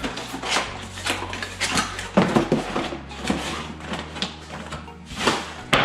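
Packaging being handled and unwrapped by hand: irregular rustling and crinkling with scrapes and knocks, the loudest burst near the end.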